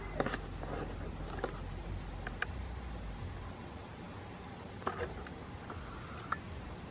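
Steady high-pitched insect drone in the background, with several faint clicks spread through it.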